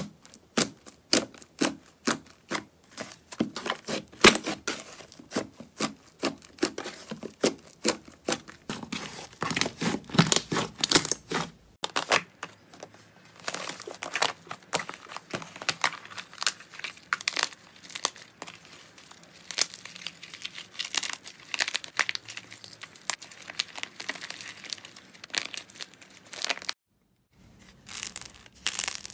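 Hands poking, pressing and stretching slime: a dense run of small sticky pops and crackles. It breaks off twice, briefly, about a third of the way in and near the end.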